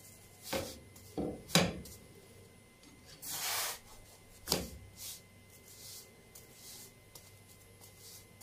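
Slotted spatula knocking and scraping against a nonstick frying pan as a pita bread is turned. There are a few short taps in the first two seconds, a longer scrape a little past three seconds in, and a sharp knock about a second after that.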